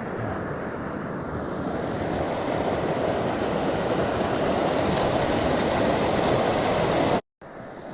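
Runoff water rushing down the canyon creek, a steady noise that slowly grows louder and cuts off abruptly near the end.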